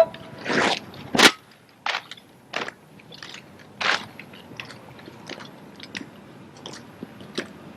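Drill rifles being handled in rifle drill: a string of sharp slaps and clacks of hands striking the rifles, roughly one every half to three-quarters of a second, the loudest about a second in.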